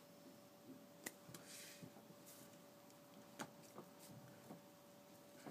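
Near silence: room tone with a faint steady hum and a few soft clicks.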